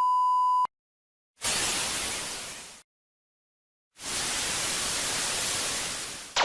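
A steady one-tone censor bleep cuts off under a second in. Then come two separate bursts of static-like hiss: the first about a second and a half long and fading away, the second about two and a half seconds long. The second ends in a very quick falling sweep.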